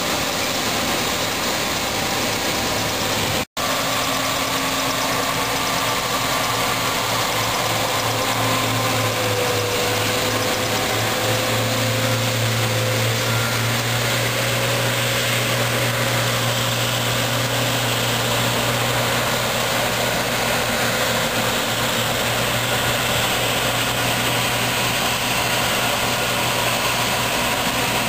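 John Deere C670 combine harvester's diesel engine and threshing machinery running steadily while it harvests rapeseed. The sound cuts out briefly about three and a half seconds in.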